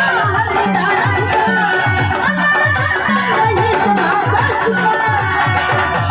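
Traditional Marathi folk music: a hand drum beats a steady rhythm of low strokes that each slide down in pitch, under a continuous melodic line.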